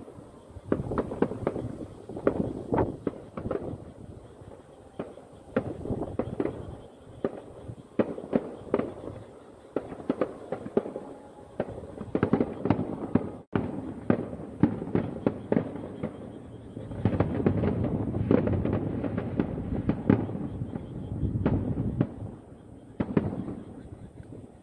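Fireworks display: aerial shells bursting in quick succession, a dense run of bangs and crackles that grows heaviest a little past the middle.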